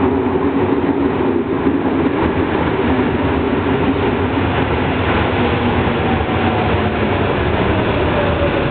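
Tokyo Metro Tozai Line electric subway trains arriving at an underground platform: a steady rumble of wheels on rail with motor whine that falls in pitch in the second half as the trains slow.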